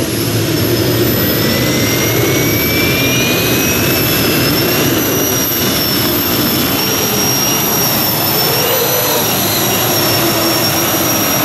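Multi-turbine modified pulling tractor 'Iwan' running its gas turbines at full power while it drags the brake sled. A steady high-pitched turbine whine over a dense jet-like rush, with one tone rising slowly.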